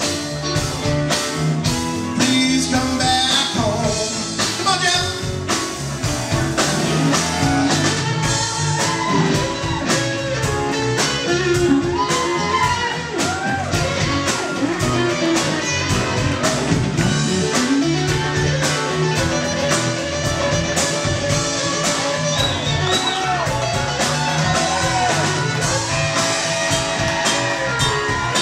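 Live rock band playing electric guitars, keyboards and drums, with a steady drum beat and a lead line that bends in pitch.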